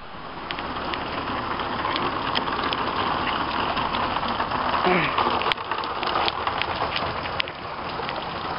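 Hailstones falling and striking hard surfaces: a dense, steady patter with many sharp, separate cracks of individual stones hitting, building over the first couple of seconds.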